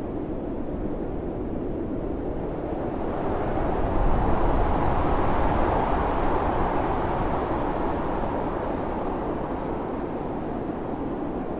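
Blizzard wind blowing hard and steadily, swelling into a louder gust a few seconds in and then easing off again.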